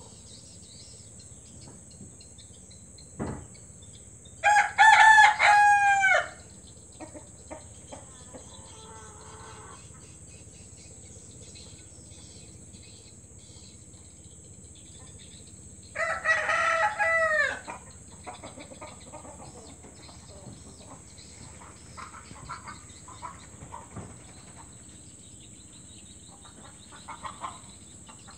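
Village rooster (ayam kampung) crowing twice, each crow about two seconds long, the second coming about eleven seconds after the first.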